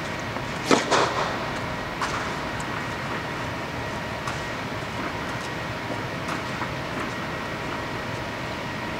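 Steady rushing air from the tennis air dome's blower, with a quick cluster of sharp knocks about a second in and a few faint taps later on.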